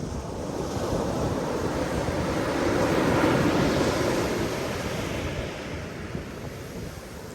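Ocean surf: a wave swells, breaks around the middle, and washes back, with some wind rumble on the microphone.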